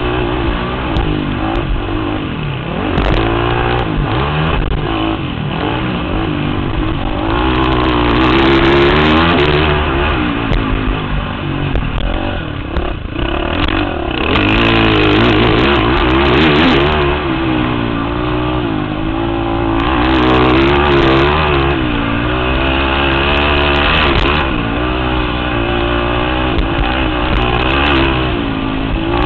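Racing ATV engine revving hard and dropping off again and again as the quad is ridden around a dirt motocross track, heard close up from on board.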